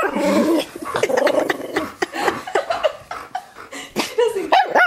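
An excited dog vocalizing in a string of grunting, whining sounds, with short up-and-down yowls at the start and again near the end. This is a dog's eager reaction to being offered a treat (popcorn).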